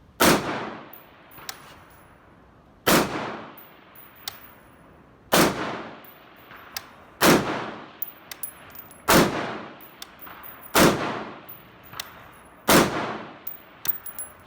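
Seven single shots from a semi-automatic 5.56 mm AR-15 rifle built as an M16A1 retro with a C7 upper, fired at a steady pace about two seconds apart, each cracking out and echoing. A faint distant ding follows about a second and a half after several shots: the bullet striking a steel target a few hundred yards away.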